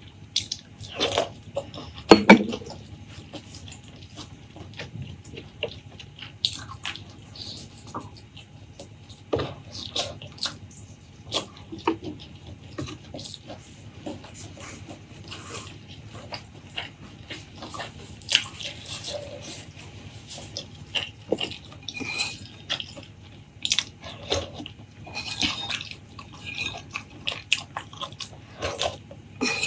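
Close-miked eating: wet chewing and mouth smacks in a quick, irregular run of small clicks, with a few louder smacks.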